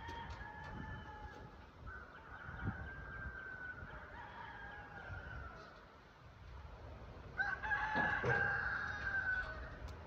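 A rooster crowing three times, the last crow the loudest, near the end.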